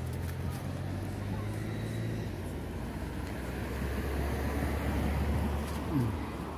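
Road traffic: a low engine hum from motor vehicles that grows louder in the second half as a vehicle passes close by, its pitch falling as it goes past about six seconds in.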